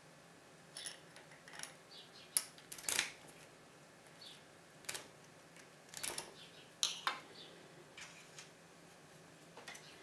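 Key being slid into a TESA TK6 euro pin-tumbler cylinder and drawn out again: faint small metallic clicks and scrapes as it rides over the pins, loudest around three seconds in and again around six and seven seconds.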